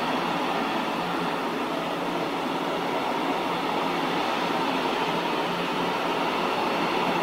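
Freight train of tank wagons rolling past at speed, a steady, unbroken noise of wheels running on the rails.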